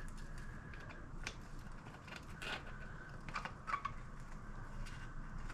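Hand work on a bicycle bottom bracket: light metal clicks and scrapes of a small tool on the bracket parts, with a few faint thin squeaks.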